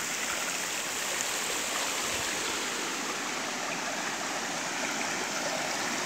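Muddy creek in spate running strong over rock ledges and small cascades: a steady rush of water.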